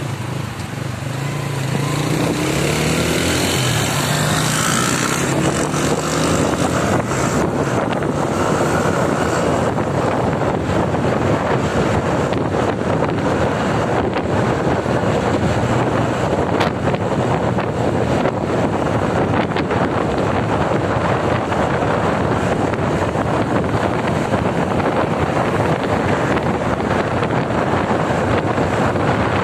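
Road travel heard from a moving vehicle. In the first few seconds an engine's note rises as it speeds up, then a steady rush of wind and road noise with crackling wind buffeting on the microphone takes over.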